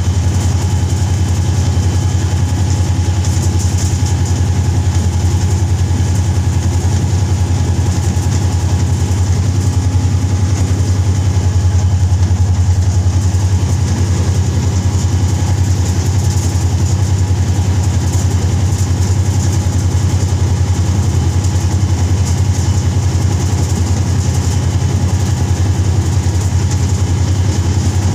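Diesel locomotive engine running steadily as the train moves: a deep, even drone with no change in pitch.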